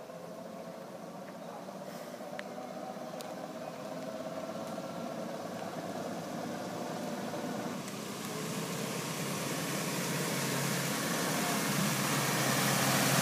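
Engine of a 1928 Graham Brothers screenside delivery truck running as the truck drives up, growing steadily louder as it approaches.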